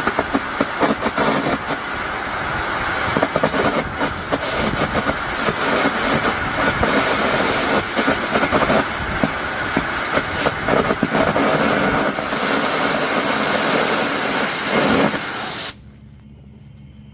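Air carbon arc gouging teeth off a roll: the arc crackles and pops under a steady blast of compressed air. The arc and air cut off suddenly near the end, leaving a much quieter steady hum.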